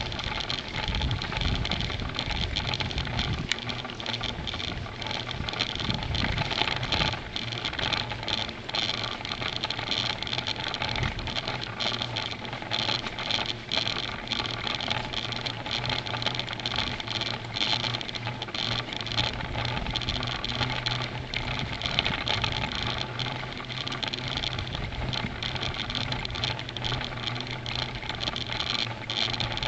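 Bicycle ridden along a woodland path, picked up by a bike-mounted camera: continuous tyre and wind noise with frequent small rattles and bumps, over a steady low hum.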